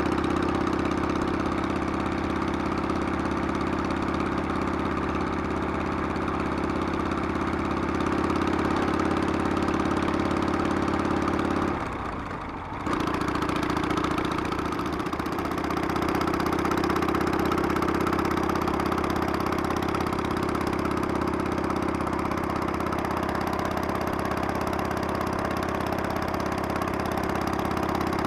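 Harley-Davidson Sportster's air-cooled V-twin engine running steadily under way, with a brief drop in its sound about twelve seconds in before it picks up again.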